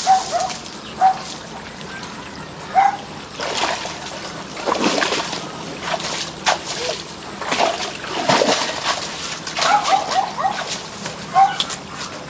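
Water buffalo splashing and sloshing in a shallow, muddy irrigation ditch as it is hauled out on a rope, in a run of irregular splashes. A few short, high calls sound near the start and again near the end.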